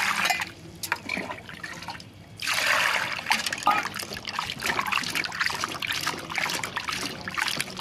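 Cut potatoes being washed by hand in water: water trickling and splashing, with the pieces clicking against each other. The sound drops away briefly about two seconds in, then picks up again.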